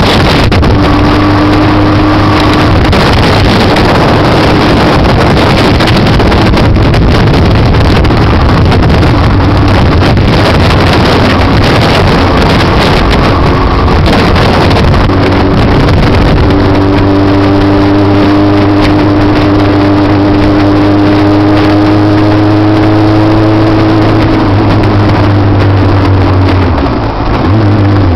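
Motorcycle engine running at road speed under heavy wind rush on the microphone. The engine note climbs steadily through the second half, then drops off a couple of seconds before the end.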